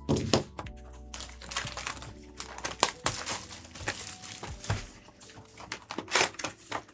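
Crinkly plastic packaging being handled, a string of sharp crackles and crinkles, over faint background music.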